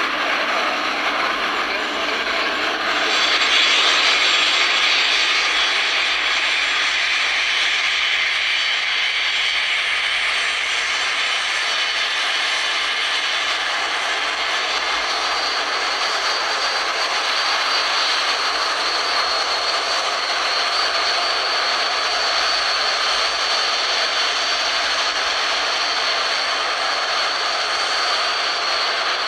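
Jet engines of a taxiing twin-engine Airbus airliner running at low taxi power: a steady rushing noise with a thin high whine, growing louder about three seconds in.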